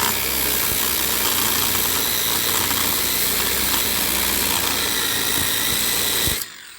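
Angle grinder cutting deeper into a scrap brass fitting to separate the steel from it, running steadily under load, then switched off about six seconds in and winding down.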